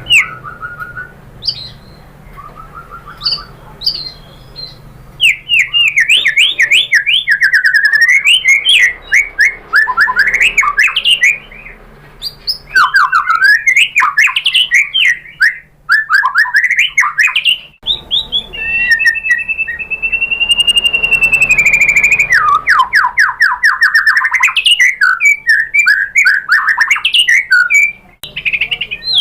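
White-rumped shama (murai batu) singing: a few soft short phrases at first, then from about five seconds in a loud, fast, varied song of rapid trills, sweeping whistles and chatter, with one long drawn-out whistle about two-thirds of the way through.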